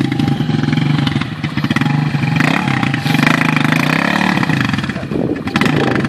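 Quad bike (ATV) engine running and revving, its pitch rising and falling under load as the quad is worked in a mud hole.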